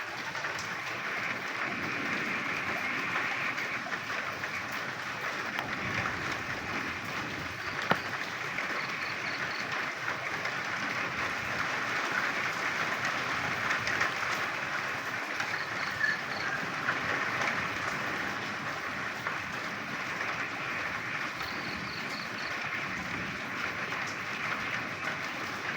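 Frogs croaking in steady rain, a dense even hiss of rainfall and calling. Now and then comes a short call of three or four quick high-pitched notes.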